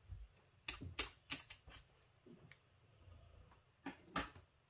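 A series of short, sharp clicks and taps: chips being set down on a craps table and a pair of dice tossed onto the felt layout. A quick run of about five clicks comes about a second in, and two more come near the end.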